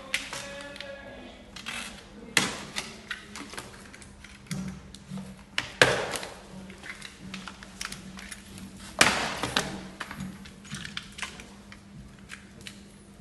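Irregular clicks and knocks of a folding e-bike and its packaging being handled during unboxing, with three louder knocks about two and a half, six and nine seconds in, over a steady low hum.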